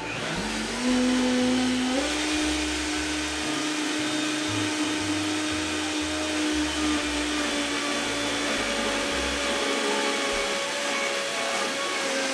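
Vitamix Vita-Prep 3 commercial blender starting up with a rising whine, stepping up in speed about two seconds in, then running steadily as it purees thick hummus of chickpeas and raw sesame seeds.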